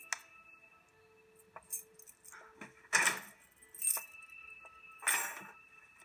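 A bunch of keys jangling in three short bursts, about a second apart, over faint steady tones.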